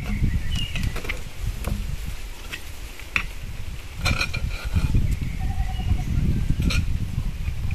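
Clinks and knocks of a black cooking pot's lid being lifted off and set down on a wooden table, with hands and a utensil working in the pot. There are a few sharp clicks.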